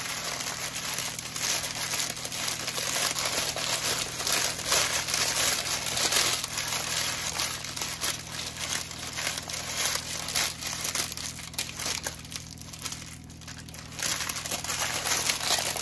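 Parchment paper crinkling and rustling as gloved hands smooth and press it on a countertop, easing off briefly toward the end.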